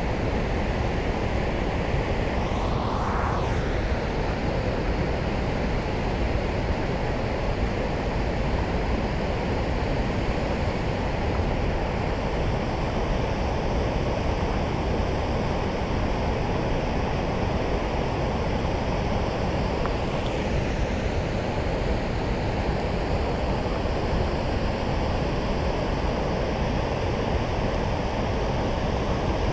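Steady rushing of turbulent tailwater churning below a dam, an even unbroken roar of water.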